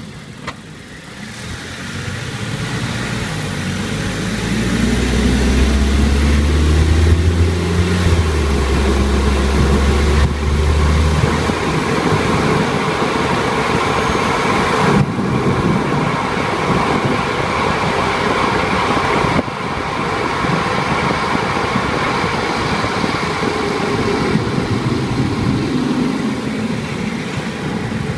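Car being driven: the engine pulls harder for several seconds about a quarter of the way in, then settles into steady running under continuous road and tyre noise.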